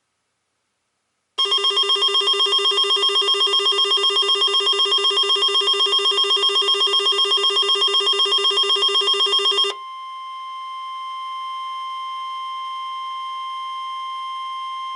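A loud, rapidly pulsing electronic alarm trill sounds for about eight seconds. It gives way to the steady 1050 Hz NOAA Weather Radio warning alarm tone, which holds for about six seconds and then cuts off, marking a weekly test of the alarm signal.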